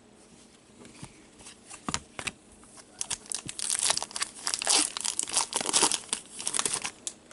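Thin plastic packaging crinkling and rustling as it is handled, a few scattered crackles at first, then dense crackling for the last few seconds.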